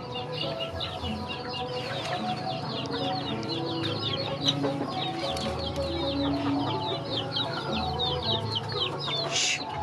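Chickens clucking, over a constant run of high, quick, falling peeps.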